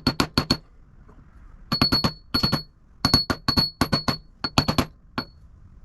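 Hammer tapping a grease seal into a Wilwood front hub: quick metal-on-metal strikes in several short bursts, each strike with a bright ring. The strikes end with one last tap near the end.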